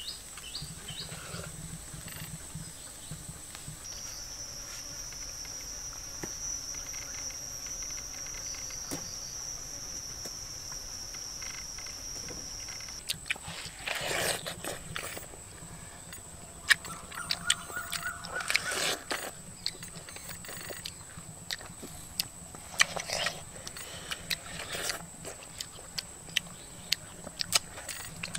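Insects droning steadily at a high pitch, with a second, lower drone that starts about four seconds in and stops about halfway through. From about halfway there is a run of short clicks and smacking sounds of people eating.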